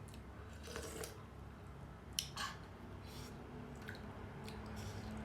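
Wet eating sounds of someone chewing momos close to the microphone: a few scattered short smacks and clicks.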